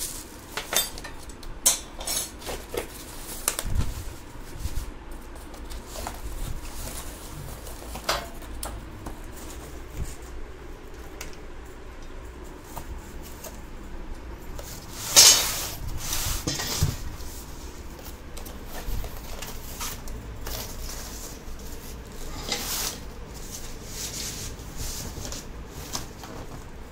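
Cast iron sewing machine stand parts being handled and unpacked from a cardboard box: scattered metal clinks and knocks with rustling of cardboard and plastic wrapping, and one louder rustle about halfway through.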